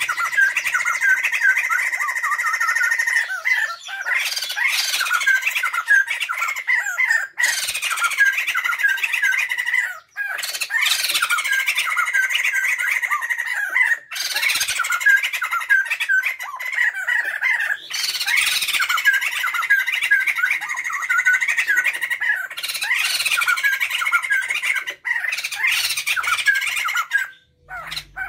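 A male and female white-crested laughingthrush calling loudly together in their rowdy laughing chorus: fast chattering notes over a held ringing note, with upward-sweeping calls, in phrases that break off briefly every few seconds.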